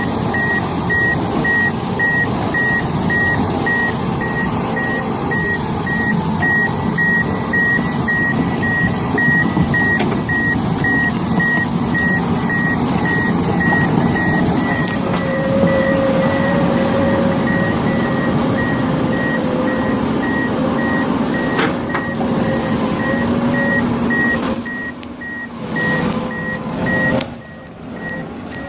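Reversing alarm on heavy machinery beeping about twice a second over a running diesel engine. Near the end the sound drops and breaks up.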